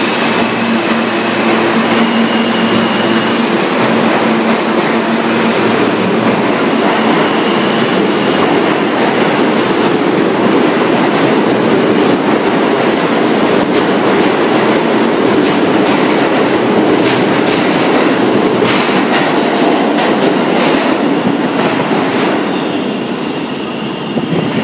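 New York City Subway R160 train pulling out of an underground station and running past at close range, with a steady whine over the rumble in the first few seconds. From about two-thirds of the way in, the wheels click sharply over rail joints as the last cars go by. The sound falls away near the end as the train enters the tunnel.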